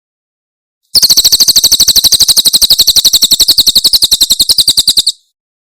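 Cililin bird giving its 'tembakan' call: one rapid, evenly spaced trill of high notes, about thirteen a second. It starts about a second in, runs for about four seconds, and stops abruptly.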